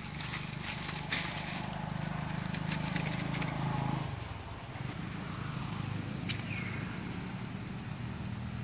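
Steady low hum in the background, with dry leaves crackling in the first second or so as macaques scuffle on the leaf litter. A single faint click with a short falling squeak comes a little past six seconds.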